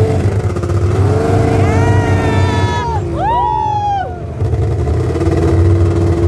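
Snowmobile engines running: a steady low engine hum close by, with higher pitched notes that slide up and fall away in the middle as the machines pull away along the trail.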